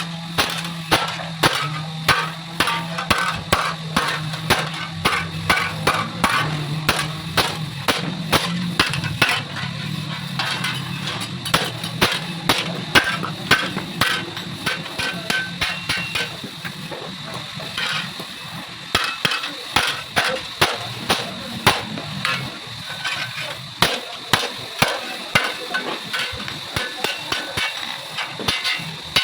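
Hammer striking metal over and over, often two or three blows a second, with a steady low hum underneath that fades out about halfway through.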